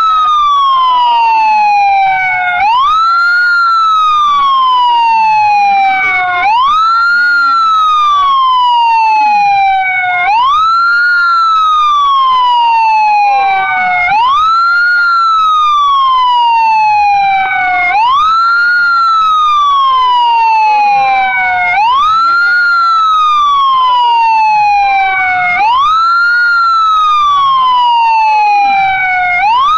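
Siren wailing in a repeating cycle, a quick rise then a slow fall about every four seconds, with a second siren fainter behind it. It is the siren sounded to mark the moment of the Independence Proclamation commemoration.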